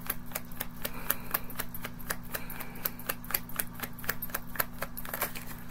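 A deck of tarot cards being shuffled by hand, the cards slapping and flicking against each other in a quick, even run of clicks, about five or six a second.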